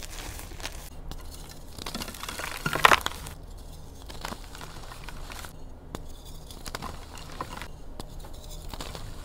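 Dyed reformed gym chalk crunching and crumbling as it is squeezed and broken apart by hand. The loudest crunch comes about three seconds in, followed by softer crumbling and scattered small snaps of chalk.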